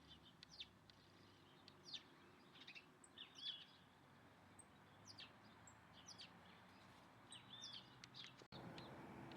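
Small birds chirping: many short, quick falling chirps from more than one bird, repeated irregularly. About a second before the end the sound cuts abruptly to a different, steadier background with a low hum.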